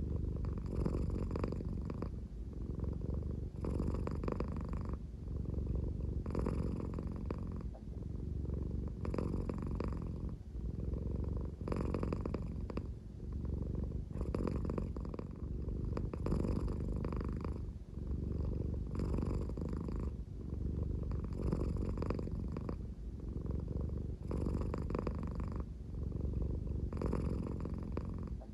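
American Shorthair cat purring at a slow, snore-like pace, the purr swelling and easing in a steady rhythm of about one breath every two and a half seconds.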